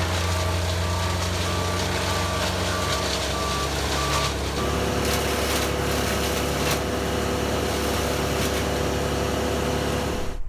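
A heavy vehicle engine running steadily, with a reversing alarm beeping about twice a second. The beeping stops about four seconds in, and the engine note changes.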